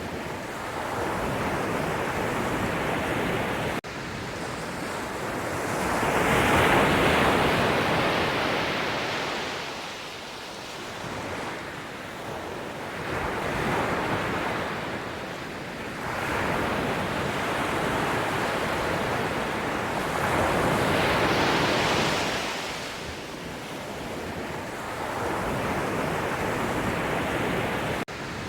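Sea waves breaking and washing up the shore, the surf swelling and falling back every few seconds, loudest about a quarter of the way in. The sound cuts out for an instant twice, once early and once near the end.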